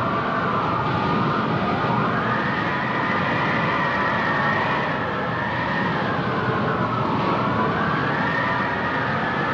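Howling tornado-wind sound effect: several whistling tones rising and falling slowly together every few seconds over a steady rushing roar.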